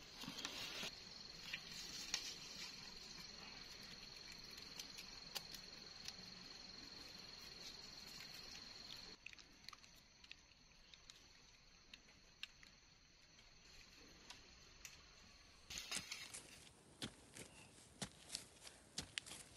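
A steady high-pitched insect buzz over quiet forest background, with scattered small knocks. It fades in the middle. Near the end, a pointed stick jabbed into soil makes repeated scraping knocks.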